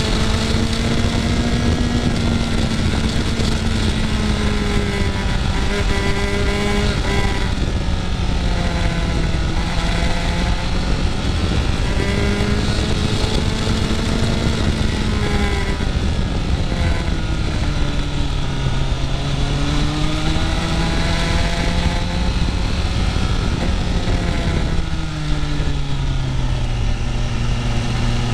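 Motorcycle engine running on the road, its note rising and falling again and again as the throttle opens and closes, with steady wind noise over it.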